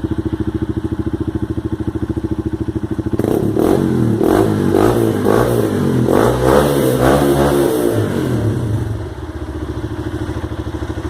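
Honda 150 Mix motorcycle's single-cylinder engine through a new exhaust, idling with an even pulse, then revved in several quick throttle blips from about three seconds in, dropping back to idle near the end.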